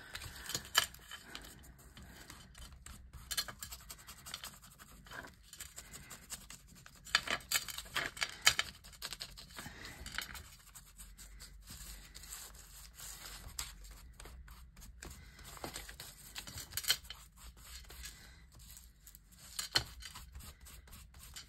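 Paper rustling and scratching as it is handled and rubbed, with brown ink being worked into its edges with a blending tool: irregular short scrapes and ticks.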